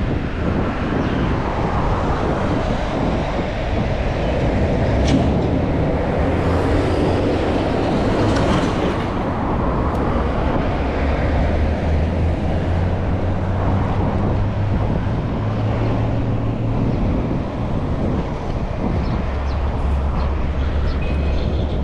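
Continuous rumble of riding a mountain bike: tyre and road noise and wind buffeting the GoPro microphone, with low droning tones that shift in pitch now and then and a few light clicks.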